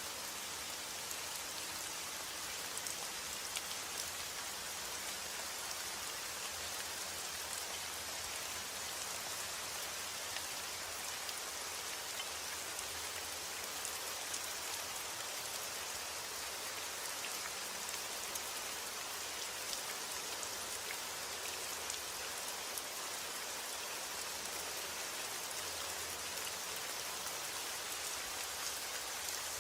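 Steady rain falling, a continuous hiss of many small drops with faint individual ticks of drops striking a surface.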